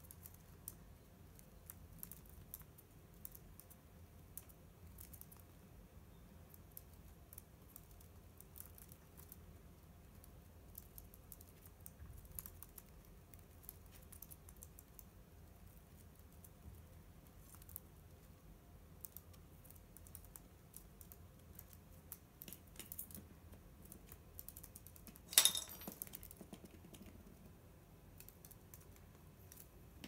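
A budgie picking and chewing at a woven twig ball: faint, irregular dry clicks and crackles of beak on wicker, with one louder, sharper crack about 25 seconds in.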